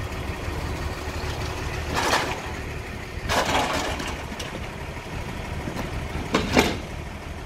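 Aluminium extension ladder being pushed back onto a fire engine's roof rack: three metallic scrapes and clanks, the sharpest near the end, over the steady low hum of the fire engine's idling engine.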